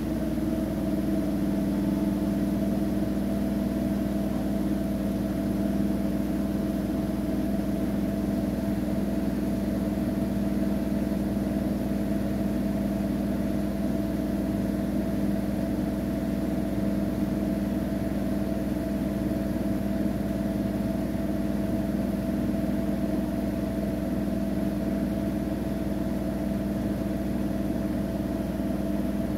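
Siemens iQ700 front-loading washing machine in its final spin, drum turning at a constant high speed with a steady motor hum and whine.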